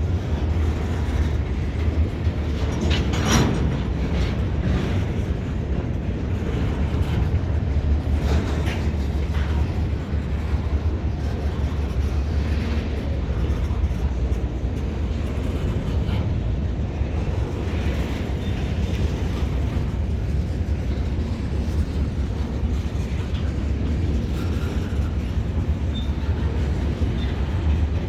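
CSX freight train moving on the tracks: a steady low rumble, with a few sharp clacks about three and eight seconds in.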